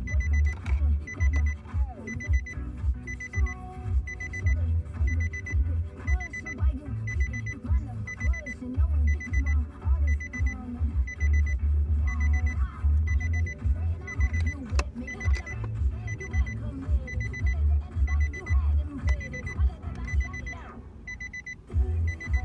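A vehicle's electronic warning chime beeping steadily, a little more than once a second. It plays over music with heavy bass thumps.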